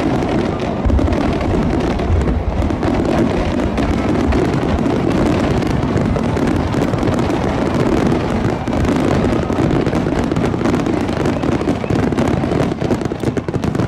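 Fireworks display at full intensity: a dense, continuous barrage of aerial shell bursts and crackling, dying away near the end.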